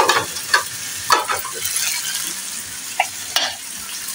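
Potatoes frying in oil in a karahi with a steady sizzle, broken by a few short knocks and clinks of pots and utensils being handled on the stove.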